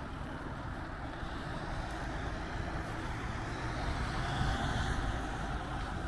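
Steady road traffic: cars driving on a multi-lane road, swelling louder for a second or so about four seconds in.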